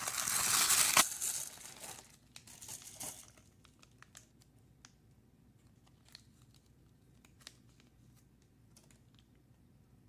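Plastic poly mailer bag crinkling and tearing as it is opened by hand, loudest in the first second and fading over the next two. Then only faint, scattered crinkles and clicks follow as a small plastic parts packet is handled and opened.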